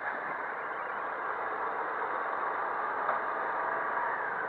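Small scooter engine, a 113 cc Suzuki Address, running in a steady drone as the scooter rides off across the lot, slowly getting a little louder.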